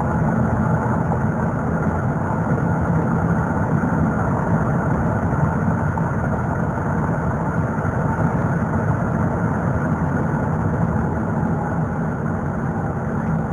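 Steady road and engine noise heard from inside a car cruising at about 40 mph on cruise control.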